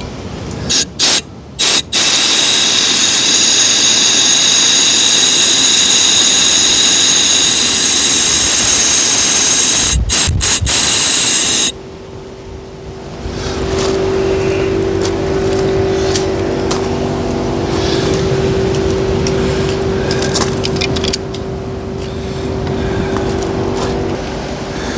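Garden-hose pressure spray gun flushing a Honda VF1000's cooling system through the thermostat-housing hose: a few short squirts, then a loud steady hiss of water for about ten seconds that cuts off suddenly. After that, a quieter steady rush of water running through the hose, with a low hum.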